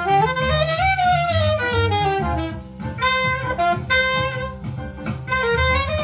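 Saxophone playing a jazz melody of quick notes and slurred runs over a backing of bass and drums.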